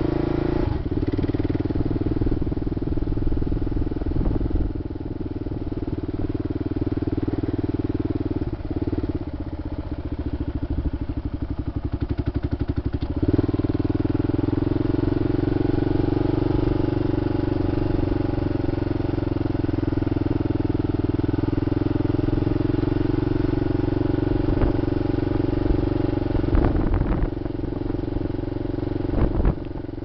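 Motorcycle engine running steadily while ridden. About eight and a half seconds in the engine note drops to a slower pulsing, then rises back about thirteen seconds in. There are a few short knocks near the end.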